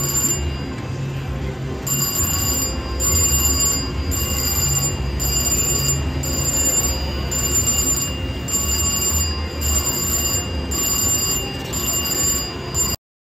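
Slot machine bonus sounds from a Bourbon Street Easy Wilds reel slot: bell-like ringing and electronic music repeating with short breaks as the reels spin and wins tally up in the Red Spins bonus. The sound cuts out briefly near the end.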